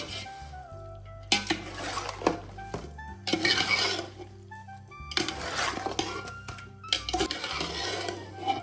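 Background music with the sound of raw chicken being mixed into a thick yogurt-and-spice marinade in a large pot, coming in four noisy bursts of stirring.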